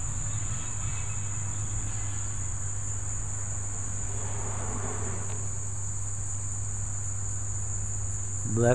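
Insects, crickets or the like, droning in one steady high-pitched tone, over a steady low hum.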